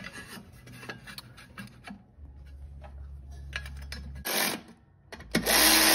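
Light clinks and taps of a sheet-metal mower deck pulley cover and its bolts being set in place by hand. After a short burst, a power driver with an 8 mm socket starts up near the end, spinning up and then running steadily to drive in the cover bolts.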